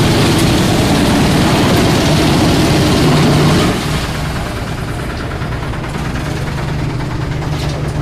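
Drum wood chipper feeding and chipping a log with a loud, dense crunching grind; about three and a half seconds in the grinding stops and the machine runs on empty with a steady low hum.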